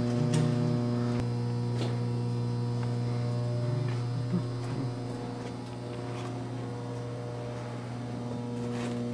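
Steady electrical mains hum: a low drone with a ladder of higher tones above it, unchanging, with a few faint knocks.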